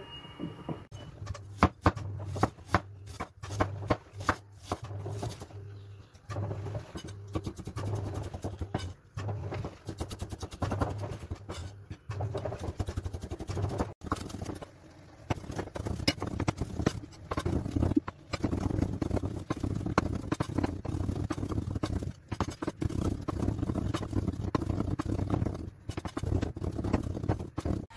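Cleaver chopping on a wooden cutting board: a run of sharp knocks, spaced out at first, then fast, nearly continuous mincing strokes through the second half.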